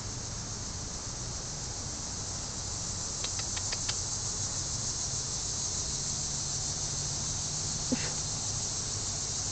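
Steady outdoor background: an even, high-pitched hiss with a low hum beneath it. A quick run of about four light clicks comes a little over three seconds in, and a single soft knock comes near the end.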